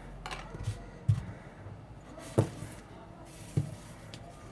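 Handling noise as a coiled, thin mouse cable is unwound on a table: light rustling and three sharp knocks, a little over a second apart.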